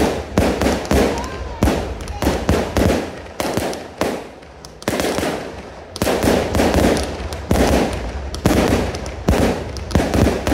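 Fireworks display: aerial shells bursting in a rapid, irregular string of sharp bangs, with a continuous low rumble between them.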